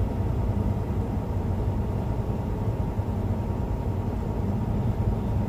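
Cab noise of a semi truck at highway speed: a steady low diesel engine drone mixed with road and tyre noise.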